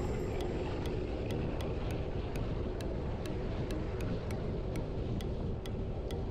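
Wind rushing over the microphone while riding, with a faint, regular tick about twice a second.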